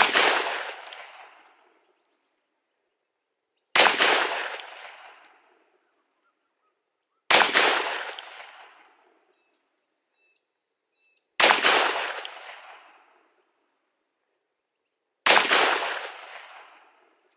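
Five shots from a Ruger Blackhawk single-action revolver chambered in .30 Carbine, spaced about four seconds apart, each ringing out and dying away over a second or two.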